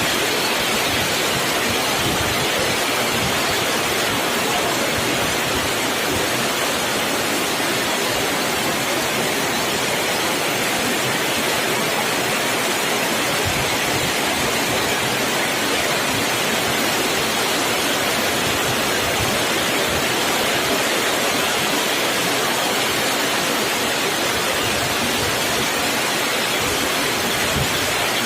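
A steady, even rushing noise that runs on without a break.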